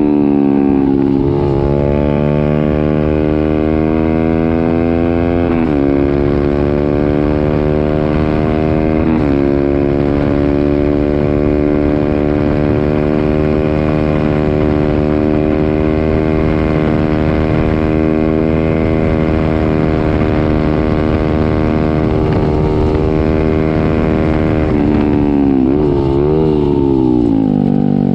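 Honda CB125R's single-cylinder four-stroke engine, straight through a full IXRACE M9 exhaust with the baffles removed, under way: it revs up through two upshifts in the first ten seconds, holds a steady cruise, then blips through several downshifts and slows near the end.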